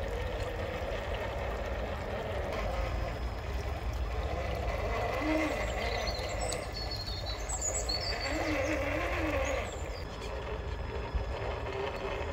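Traxxas TRX-4 RC crawler's Titan 550 brushed electric motor and geared drivetrain whining as it crawls along a log, the pitch rising and falling a few times with the throttle, over a steady low rumble.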